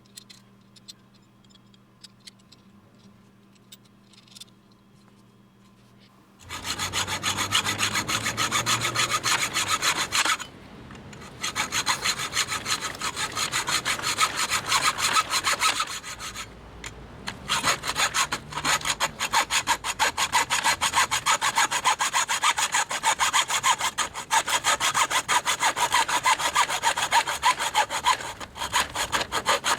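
Hyper Tough 6-inch aluminum mini hacksaw cutting through a tube with quick back-and-forth strokes. The sawing starts after a few quiet seconds, about six seconds in, and is broken by two short pauses.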